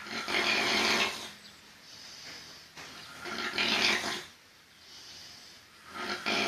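A person snoring in a slow, regular rhythm: three loud, rattling snores about three seconds apart, each lasting a little over a second, with quieter breaths between them that carry a thin, high, steady tone.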